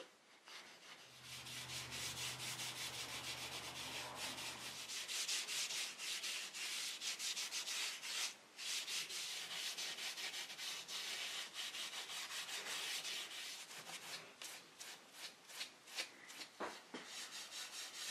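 Fine 0000 steel wool rubbed lightly back and forth over the painted wood of a chair, working in beeswax polish: quick, continuous scratchy strokes with a short pause about eight seconds in. A low steady hum sounds under it from about one to five seconds in.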